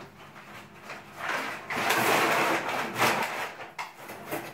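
Packing paper rustling and crinkling as hands dig through a parcel's box, loudest for about two seconds in the middle, with a few small handling clicks around it.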